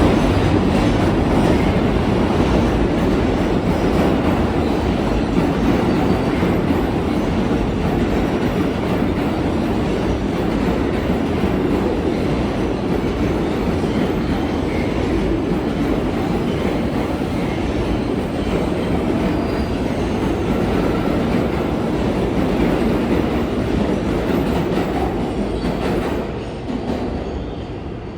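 New York City subway train running through the station, a loud steady noise of wheels on rails with some wheel squeal, dying away about 26 seconds in.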